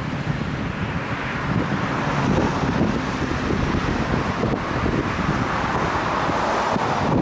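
Wind buffeting the microphone over a steady hiss of road traffic that swells from about a second in.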